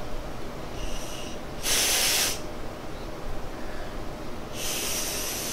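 Breath blown through a thin plastic nozzle into a unicorn balloon ball's valve, heard as hissing puffs of air: a short, strong puff about two seconds in, then a longer steady hiss starting near the end.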